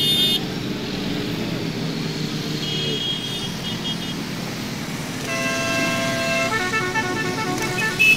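Motorcycle engines running in a slow-moving parade, a steady low rumble, with short horn toots near the start and about three seconds in. From about five seconds in, one long horn note, then a quick run of short notes at changing pitches, like a musical horn.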